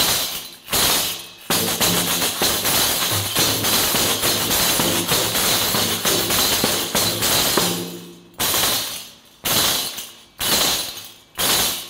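Pandereta (Spanish frame tambourine with metal jingles) played by dragging a finger across the skin in the 'riscando' style, held at the right pressure so the jingles sustain a continuous rattling roll. Two short rolls open the passage, then one long unbroken roll of about six seconds, then four short rolls that each fade.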